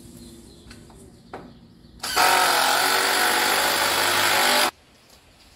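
Cordless drill driving a screw into a wooden 2x4, running steadily for about two and a half seconds and stopping suddenly, after a couple of light knocks of the board being handled.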